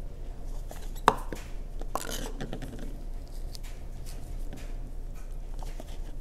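Hand-handling sounds of damp sphagnum moss being put into small plastic pots: a sharp tap about a second in, then light clicks and rustles.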